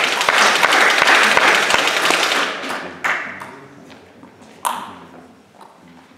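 Spectators in a sports hall clapping after a table tennis point, loud for about three seconds and then fading out. Two sharp knocks follow, about three and four and a half seconds in.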